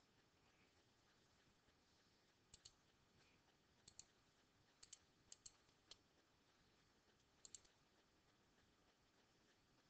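Faint clicks of a computer mouse button, six of them between about two and a half and eight seconds in, most heard as a quick double tick, over quiet room tone.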